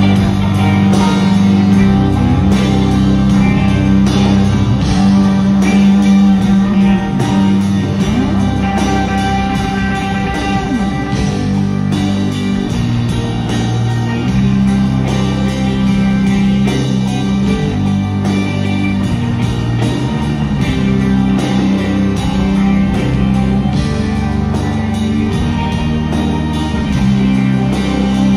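Live progressive rock band playing an instrumental passage: guitars over sustained bass and keyboard chords, with the low notes shifting every few seconds.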